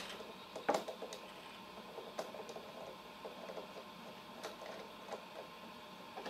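Scattered light knocks and clicks of a hand tool and hands working on a wooden toolbox panel, with a few sharper wooden knocks spaced a second or more apart.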